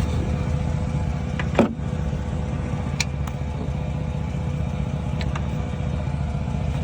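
Steady low rumble of an idling engine, with three sharp metallic clinks from hand tools and brake parts being handled. The loudest clink comes about one and a half seconds in, and fainter ones at about three and five seconds.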